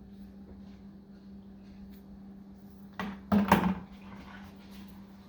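Low steady hum from the wire-stripping machine running. About three seconds in comes a brief, loud clatter of wire and metal being handled.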